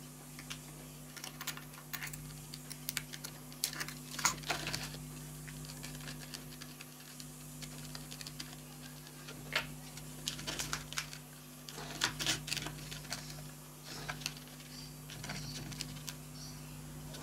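Irregular light clicks, taps and scrapes of a flat-bladed tool prying at a 3D-printed plastic core box and of the box being flexed to release a sand-and-resin core, over a low steady hum.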